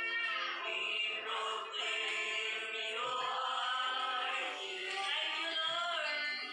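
Voices singing praise and worship songs, with the church band's music behind them.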